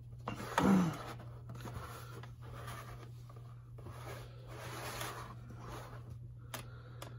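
A plastic toy aircraft and its display stand being turned by hand on a sheet of paper: soft rubbing and scraping that comes and goes. About half a second in, a brief murmur from a man's voice falling in pitch is the loudest sound.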